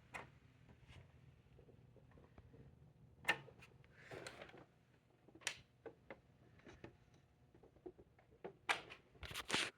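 Faint scattered clicks and a few short rustling noises, a little louder near the end.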